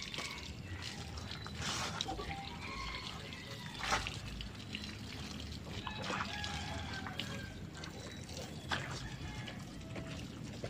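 Water from a garden hose trickling and splashing over a motorcycle as it is wiped down by hand, with scattered small clicks and one sharp knock about four seconds in.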